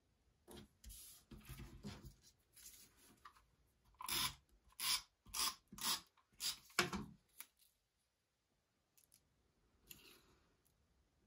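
Paper being handled: a thin paper strip is slid across a scrapbook page and rubbed down with the fingers. There is a soft rustle at first, then a run of about seven short scraping strokes a little past the middle.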